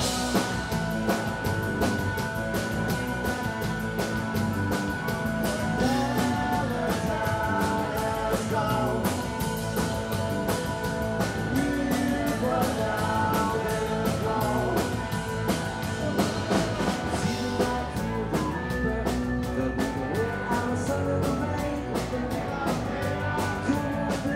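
A rock band playing live: a drum kit keeping a steady beat, with electric guitar, bass guitar and some singing.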